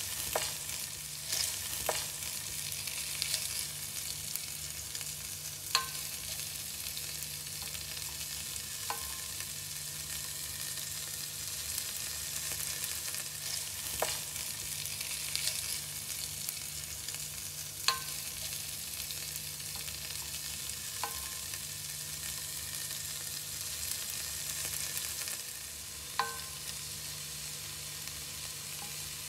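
Sliced onions, garlic and chopped parsley sizzling in oil in a pan, a steady frying hiss. A wooden spatula stirs them, knocking on the pan about eight times, some knocks leaving a short ringing tone; the sizzle eases a little near the end.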